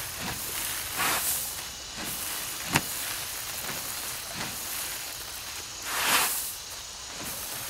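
Hand-held winnowing fan swung through the air over threshed rice, making a series of airy whooshes about once a second as it fans the chaff off the grain. The strongest whoosh comes about six seconds in, and a single sharp click comes a little under three seconds in.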